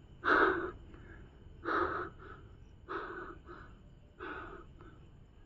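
A man breathing heavily and audibly, five sharp breaths about every second and a half, the first the loudest.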